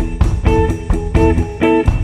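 Background music: plucked guitar notes over a bass line with a steady rhythm.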